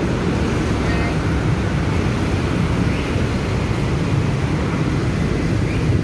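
Steady low rumble of city road traffic, with a few faint brief high squeaks over it.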